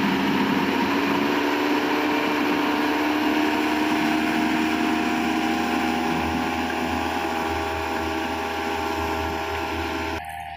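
Combine harvester running while harvesting, a steady mechanical din with several whining tones that drift slightly lower, fading a little as the machine moves away; the uploader puts the noise down to a loose feeder-house chain. The sound cuts off suddenly near the end.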